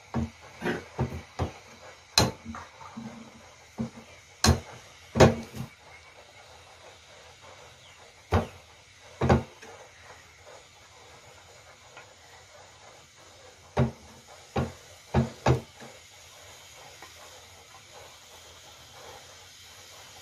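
Cooking utensils knocking and tapping against a metal pan on a cooking pot as batter is ladled and spread: sharp, irregular clacks, several in quick succession at the start, then in scattered groups, over a faint steady hiss.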